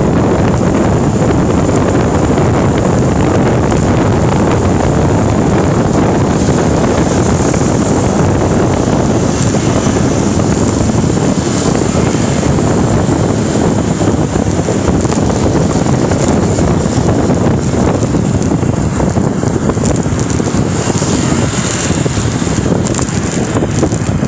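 Wind rushing over the microphone while riding along a road, a loud, steady rush with no breaks.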